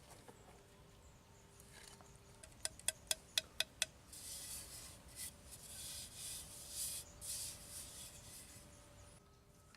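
A quick run of six sharp taps, then several seconds of uneven scraping strokes, something rubbed against a hard surface.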